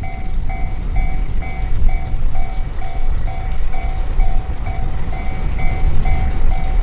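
Japanese level-crossing warning bell ringing steadily at about two strikes a second, over the heavy low rumble of a train running past.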